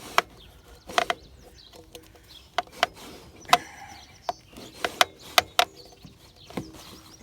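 Irregular sharp clicks and knocks, about a dozen of them, from hands working the motorcycle's rear wheel free of its drive belt.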